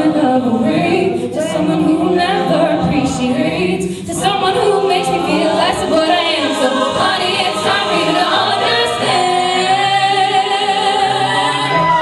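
Mixed-voice show choir singing in harmony through handheld microphones, ending on a long held chord.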